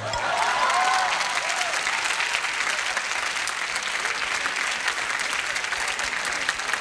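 Studio audience applauding, loudest about a second in and then steady.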